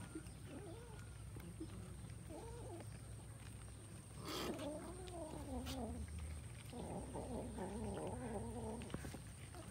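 Cats meowing and yowling in wavering calls: a few short calls at first, then longer, overlapping ones starting about four seconds in and again about seven seconds in.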